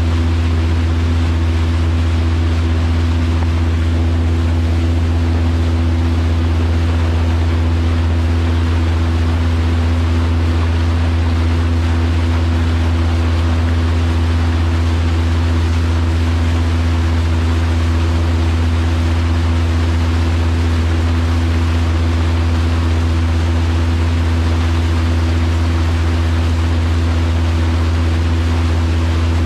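Fishing boat's motor running at a steady cruising speed, a constant low drone with a steady hum above it, over the rush of water along the hull.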